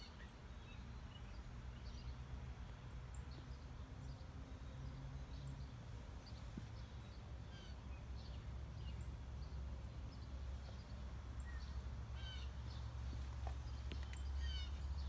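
Birds chirping: short high calls, some falling in pitch, scattered throughout and coming thicker near the end, over a steady low hum.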